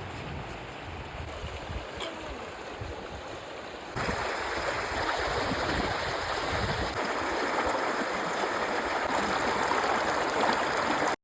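Egg frying on a hot stone: a steady sizzling hiss with fine crackles, which jumps louder about four seconds in.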